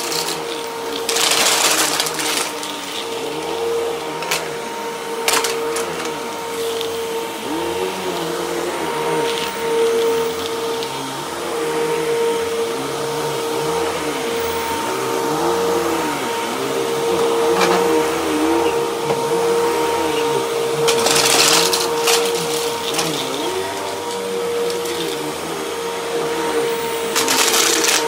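Vacuum cleaner running on a rug, with a steady high motor whine and a lower hum that rises and falls. A few brief, louder hissing rushes come about a second in, around five seconds in, past the two-thirds mark and near the end.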